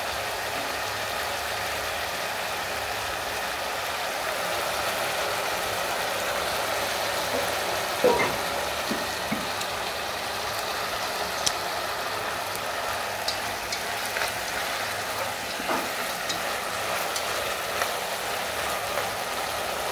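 Steady sizzling of cauliflower stir-frying in a nonstick wok. Scattered light clicks of chopsticks against the pan, with a sharper knock about eight seconds in.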